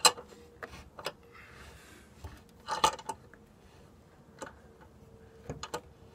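8-inch C-clamp being screwed down on a steel gusset plate against an old wooden truss: scattered sharp clicks and clinks a second or so apart as the handle turns and the plate is squeezed flat, the loudest about three seconds in.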